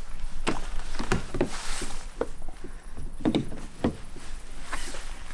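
Irregular clicks and knocks of a Tesla Wall Connector's charging handle and cable being handled and plugged into an electric car's charge port, with a couple of short rustling swells.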